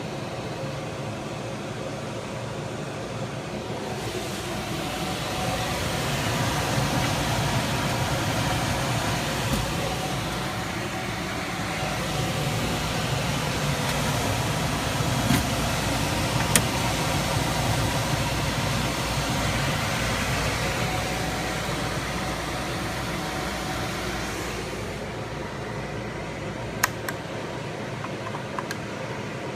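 HVAC system running with a steady rush of air that swells for several seconds and eases again, with a few sharp clicks partway through and near the end.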